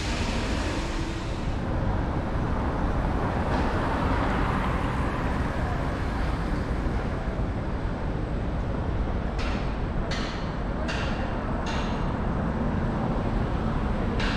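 City street traffic noise with a steady low rumble, and a louder rush of passing traffic that fades about two seconds in. Four short sharp clicks come close together about ten to twelve seconds in.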